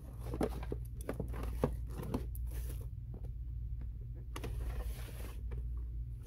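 Faint rustling and scattered clicks of handling noise over a low steady hum.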